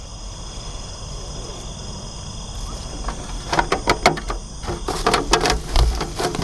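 Steady chirring of night insects, then from about three and a half seconds in a quick run of clicks and knocks as a blue plastic box is handled and its latches are worked open.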